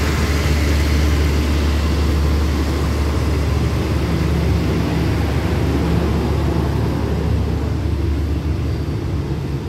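Coaches of a State Railway of Thailand special express train rolling slowly past as it departs. The wheels run on the rails over a steady low hum, which fades as the last coach goes by near the end.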